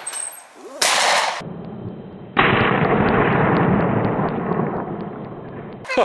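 Two shotgun shots from an over-and-under shotgun fired at a flying clay target: one about a second in, then a louder one about two and a half seconds in, followed by a long noisy tail that fades over some three seconds.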